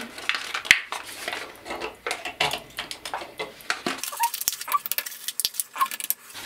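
AAA battery blister pack, card and plastic, crinkling and tearing as the batteries are pried out. In the second half come sharp clicks and small squeaks from the batteries being handled and pressed into a small plastic battery compartment.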